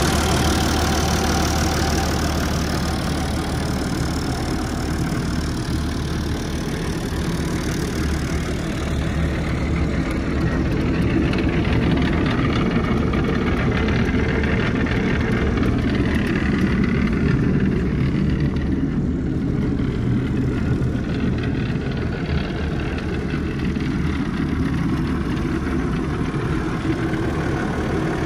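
Massey Ferguson 3650 tractor's six-cylinder Perkins diesel engine idling steadily.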